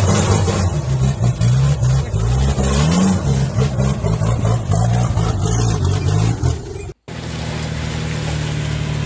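Lifted Mitsubishi L200 pickup's diesel engine revving hard under load on a rocky climb, its pitch rising and falling again and again. About seven seconds in, a sudden cut to a steadier engine drone from another vehicle.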